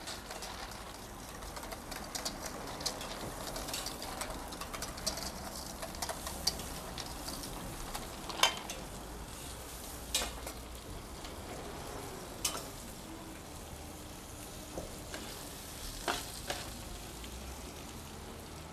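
Sausages sizzling on a gas barbecue grill, a steady hiss with a few sharp clicks as they are turned with tongs.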